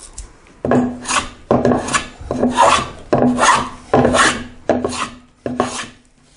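Hand plane cutting along a wooden board in seven quick strokes, a little under a second apart, each starting sharply and trailing off as it takes off thick shavings.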